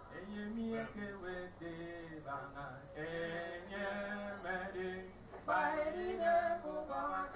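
Voices singing a hymn, with held notes that step from pitch to pitch; the singing grows louder a little past halfway.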